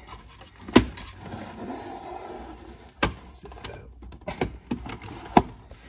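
Plastic door-sill trim of a Porsche Boxster being pressed and knocked back into place over the carpet: three sharp clicks or knocks, the loudest about a second in, another about three seconds in and one near the end, with scuffing of plastic on carpet in between.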